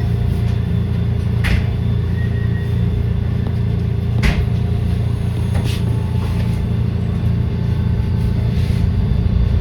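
SEPTA Route 34 trolley car running with a steady low rumble, with four short sharp knocks scattered through it.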